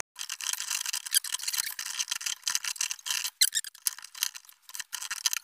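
Thin sheet-steel cone rubbing and clicking against the rollers of a hand-cranked Warco slip roll as it is worked and rolled. A thin, scratchy rubbing made up of many small ticks.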